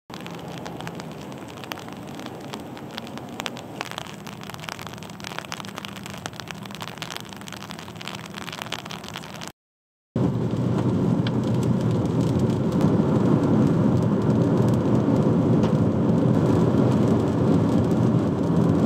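Rain pattering steadily, with many sharp drop hits. About ten seconds in it cuts off, and after a short gap comes a louder, steady rumble of a car driving at speed on a wet road: tyre and road noise.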